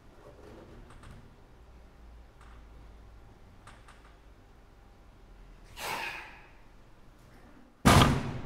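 A performer striking a wooden stage platform: one sharp, loud slam near the end that rings briefly. Before it there is faint shuffling and a short breathy rush about six seconds in.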